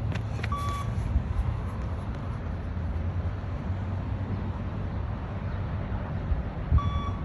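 Beep-test signal beeps at level 6 of a shuttle run: two short, high electronic beeps about six seconds apart, each marking the moment the runner must reach the end of a shuttle. A steady low rumble runs underneath.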